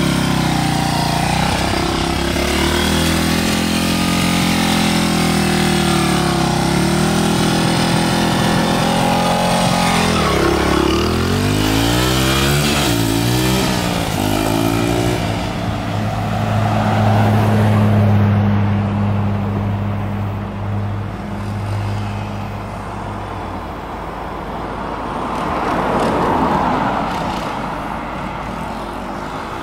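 Small dirt bike's engine running and revving, its pitch rising and falling as it rides along and away, then holding a steadier note from about halfway through. Near the end a car passes, its engine and tyre noise swelling and fading.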